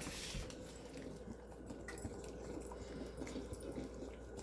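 A puppy licking pound cake dough off a kitchen utensil: faint, irregular wet licks and small clicks of tongue and teeth on the utensil.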